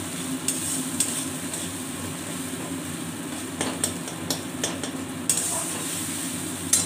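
Spatula stirring mustard paste and tomato frying in oil in a wok over a low flame: a steady sizzle, with sharper scrapes and taps of the spatula on the pan, several around the middle and one near the end.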